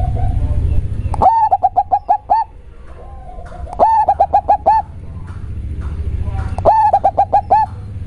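Zebra dove (perkutut) cooing: three song phrases, each a quick run of short, rising-then-falling coo notes, with softer drawn-out notes between them. A steady low hum runs underneath.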